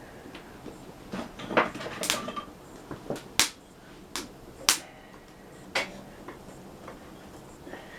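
Irregular sharp knocks and clacks, about seven in all and bunched in the middle, of a wood stove and its firewood being handled to relight a dead fire.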